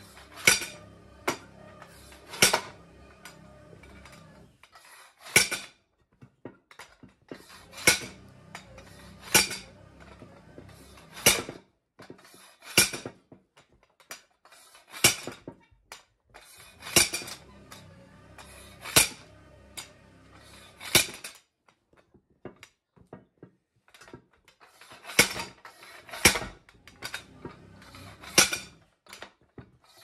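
A metal bead-breaking tool struck again and again around the bead of a tire on its rim: sharp metallic clanks, one every second or two, with a short pause about two-thirds of the way through.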